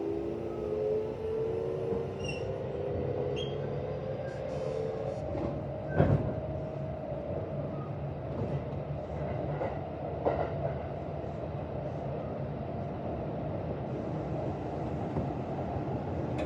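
Inside a Kintetsu 1026 series electric train under way: the VVVF inverter's whine rises in pitch for the first couple of seconds as the train accelerates, then gives way to the steady running rumble of wheels on rail. There is a single loud knock about six seconds in.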